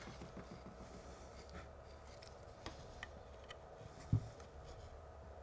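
Faint handling sounds of hand soldering on model railway track: small ticks and rubbing as the soldering iron tip and solder wire touch the rail and copper clad, with one soft knock about four seconds in, over a faint steady hum.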